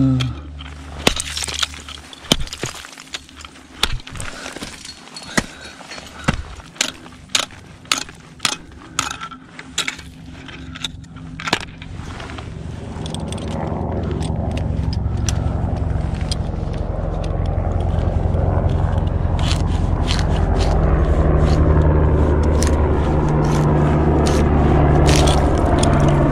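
Ice axes and crampons striking and scraping hard bare ice in a run of sharp impacts, about one a second. From about halfway through, a steady low rumble builds up and becomes louder than the strikes.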